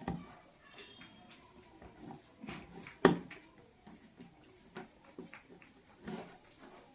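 Scattered small clicks and taps of objects being handled, with one sharp click about three seconds in.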